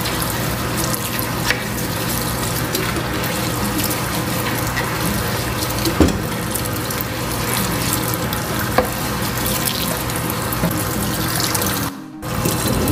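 Tap water running into a stainless steel kitchen sink while a wooden cutting board and dishes are scrubbed with a sponge, with a few sharp knocks. The sound drops out briefly near the end.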